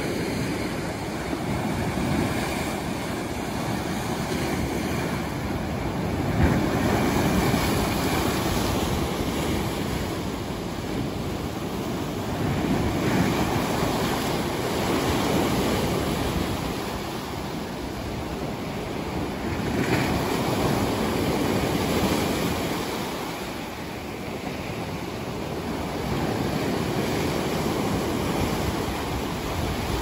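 Sea waves breaking among dark rocks and washing up a sandy beach. The surf swells and eases in slow surges every several seconds.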